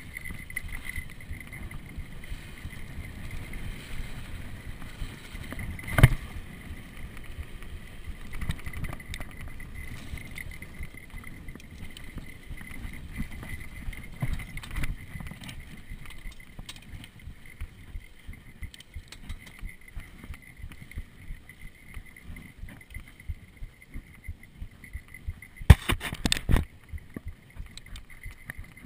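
Mountain bike rolling fast down a dirt trail: knobby tyres crunching over the ground and the bike rattling constantly over bumps, with a sharp knock about six seconds in and a cluster of hard knocks near the end.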